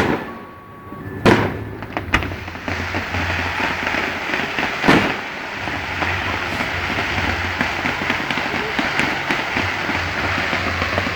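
Aerial fireworks going off: a few sharp bangs in the first two seconds and another about five seconds in, then a dense, continuous crackle of many small shells over a low rumble.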